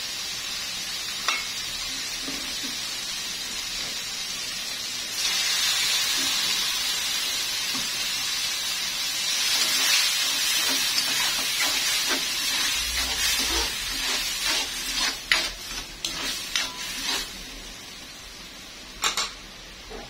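Onion, garlic and tomato sizzling in hot oil in a wok; about five seconds in the sizzle grows louder as cooked mung beans go in to sauté. In the second half a metal spatula scrapes and taps against the pan as the mixture is stirred, and the sizzle dies down near the end.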